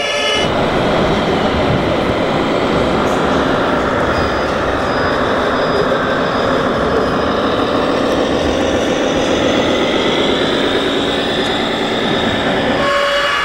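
Radio-controlled model fire truck running: a steady, dense mechanical rumble whose pitch rises and falls slightly. It starts about half a second in and stops shortly before the end.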